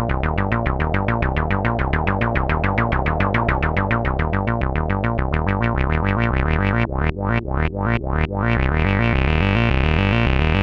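Behringer MS-1 analog monophonic synthesizer (an SH-101 clone) playing a fast run of short, bright repeated notes, about eight a second. About seven seconds in, a few notes are cut darker and shorter by the filter. The sound then opens into a continuous, brighter buzzing line with the notes running together.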